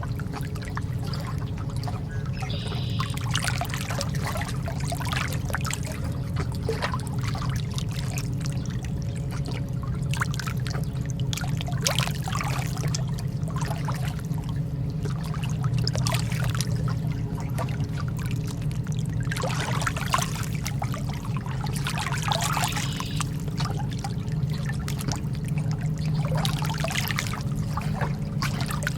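Calm ocean water lapping and splashing in small irregular washes, over a steady low hum.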